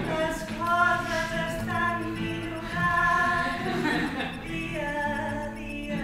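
Voices singing a slow melody in long held notes that change in steps.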